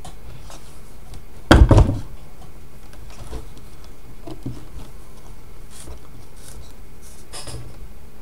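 A heavy knock and scrape, with several quick peaks about a second and a half in, as the cast-iron dumbbell is shifted on the wooden slab. Otherwise faint rustling and small clicks from hands working a thin cord into a knot around the handle.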